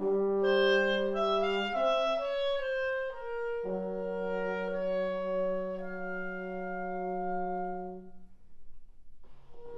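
Clarinet and trombone playing a duo: the trombone holds low sustained notes while the clarinet moves above it, with one long held trombone note in the middle. The playing thins out briefly about eight seconds in, and both come in again near the end.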